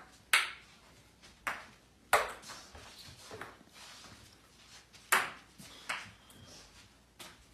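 Table tennis ball struck by paddles and bouncing on the table during play: about seven sharp, irregularly spaced clicks.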